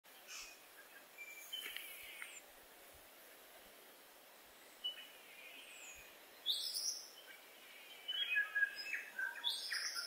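Tui and common starling singing: scattered short phrases of clear whistles mixed with harsher, noisier notes, busiest over the last two seconds.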